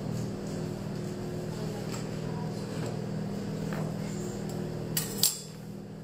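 A knife cutting through a marshmallow biscuit slab on a wooden cutting board, with faint scrapes and ticks of the blade, over a steady low hum. About five seconds in come two sharp knocks of the knife against the board.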